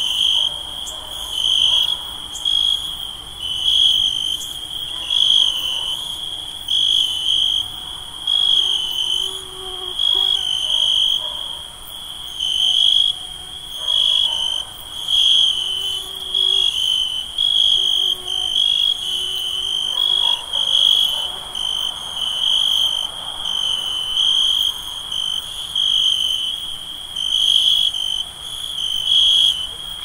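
Crickets chirping in a continuous high trill that swells and eases every second or two, with a fainter, higher insect hum held steady behind it.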